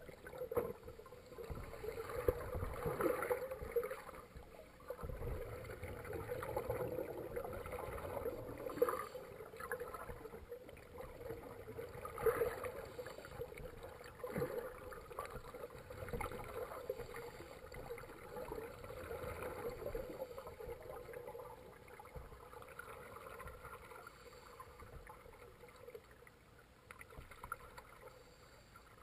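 Muffled underwater sound of a swimming pool picked up through a submerged camera: irregular water movement and bubbling that swells and fades as scuba divers move close by.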